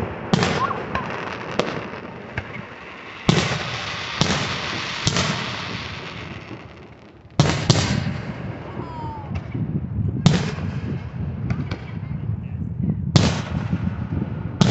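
Aerial firework shells bursting overhead: about ten sharp bangs at uneven spacing, several close together in the first seconds, each trailing off in a rumbling echo.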